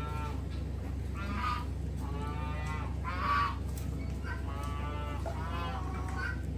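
Poultry calling: about eight short, honking squawks in quick succession, several falling in pitch, over a steady low hum.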